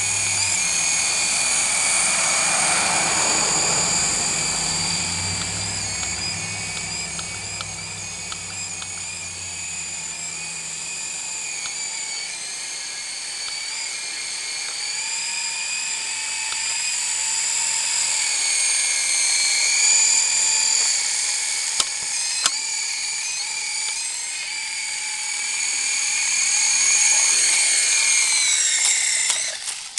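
Syma S033G coaxial R/C helicopter's electric motors and rotors whining in flight, the pitch wavering up and down with the throttle. Near the end the whine drops in pitch and stops, with the helicopter down on the ground.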